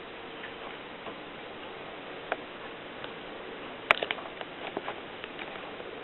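Mercedes typewriter keys striking: a few scattered clacks, then a quicker, irregular run of keystrokes from about four seconds in, over a steady hiss.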